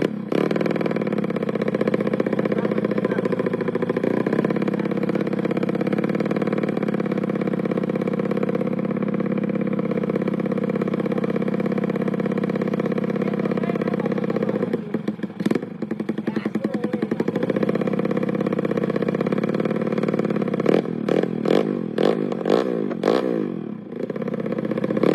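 Suzuki Smash motorcycle's bored-up single-cylinder four-stroke engine idling steadily, then revved with a few quick throttle blips in the second half.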